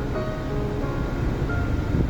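Music with short melodic notes over a steady low rumbling noise.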